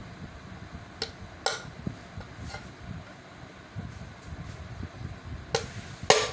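A handful of sharp clicks and taps of small hard objects, the loudest one near the end, over a low steady rumbling background.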